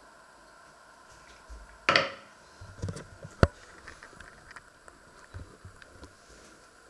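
Handling noise as a camera is picked up and repositioned: a short rustling burst about two seconds in, a few knocks, and one sharp click about halfway through, followed by small ticks, over a faint steady hum.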